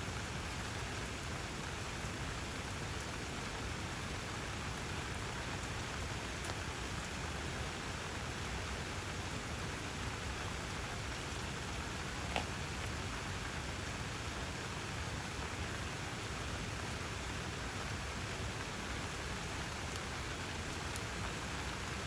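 Steady rain falling, an even hiss with one sharp tick about halfway through.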